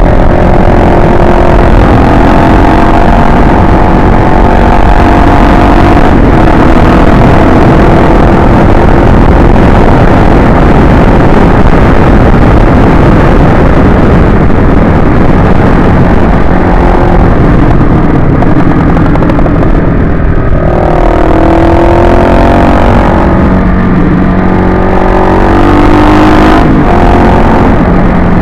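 Kawasaki KLX250S supermoto's single-cylinder four-stroke engine running at road speed, its pitch rising and falling several times in the second half with throttle and gear changes. Heavy wind rush on the helmet-camera microphone runs under it.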